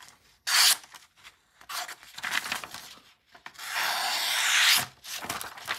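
Folding-knife blade slicing through paper: a short cut about half a second in, a few faint scratchy strokes, then one long slice lasting about a second near the end.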